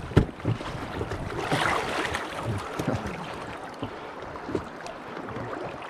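Fast river current rushing and splashing around a small pontoon boat and the legs of the angler walking it upstream through a shallow riffle, with a few short splashes and knocks.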